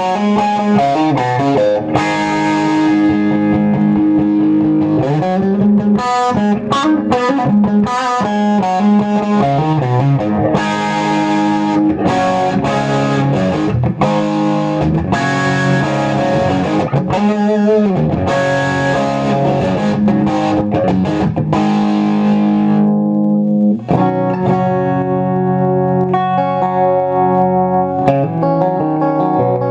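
1957 Gibson Les Paul Junior electric guitar with its single P-90 pickup, played through an amplifier with overdrive: distorted lead lines with string bends. About three-quarters of the way through the tone turns darker and notes are held ringing.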